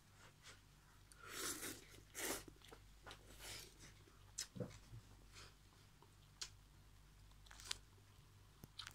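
Faint chewing and crunching of a mouthful of noodles with cabbage and corn: a few bursts in the first few seconds, then scattered small clicks.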